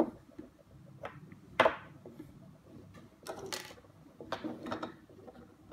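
Plastic housing parts of a disassembled MiP robot being handled: a few sharp plastic clicks and knocks, the loudest about one and a half seconds in, then two short scraping rustles.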